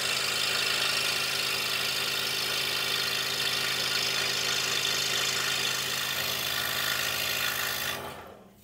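DeWalt scroll saw running steadily while its blade cuts a wooden puzzle piece. The saw is switched off near the end, and its sound dies away within about half a second.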